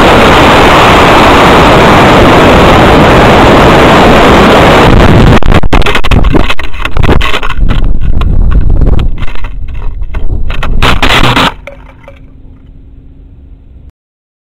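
Model rocket's onboard camera microphone overloaded by a steady, loud rush of noise from the Estes C6-3 motor's thrust and the airflow over the body during boost and coast. About five seconds in it changes to uneven, gusting wind buffeting as the rocket falls back. This drops to faint noise about eleven seconds in and cuts off near the end.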